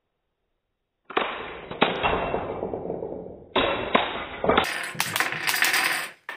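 LEGO blowback rubber band pistol firing several shots, each a sharp plastic clack from the snapping band and the slide, with the LEGO brick targets clattering as they are knocked over on the table. The first shot comes about a second in, and the shots come faster near the end.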